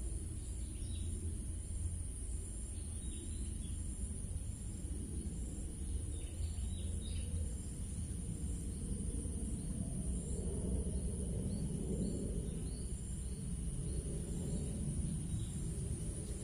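Outdoor rural ambience: a steady low rumble, a continuous high insect drone, and a few faint bird chirps.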